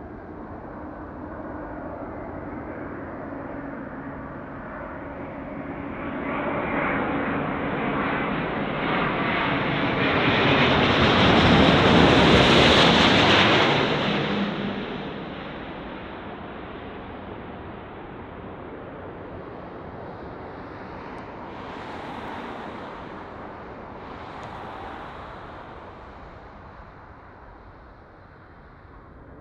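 Airbus A350 jet airliner with Rolls-Royce Trent XWB engines coming in to land. The engine noise swells to a peak about twelve seconds in and then fades away.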